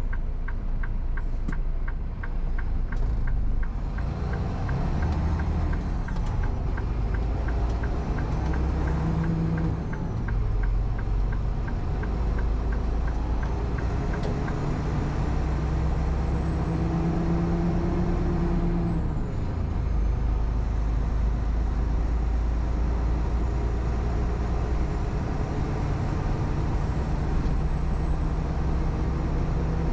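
Semi truck's diesel engine heard from inside the cab, pulling away and accelerating through several gear changes, its pitch climbing and then dropping at each shift. A turn signal ticks steadily, about two to three clicks a second, through the first half and then stops.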